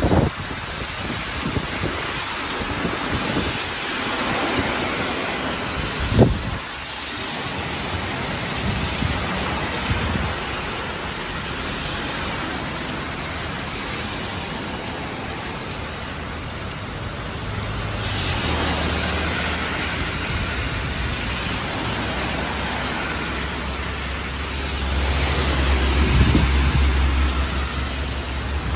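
Heavy rain pouring onto pavement and road, a steady hiss throughout. Cars swish past on the wet road twice in the second half, with a low rumble beneath them, and there is a single sharp knock about six seconds in.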